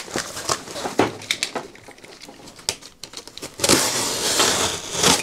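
Cardboard shipping box being opened by hand: scattered knocks and rustles of the flaps, then from about three and a half seconds in a louder, rasping cardboard noise lasting about a second and a half.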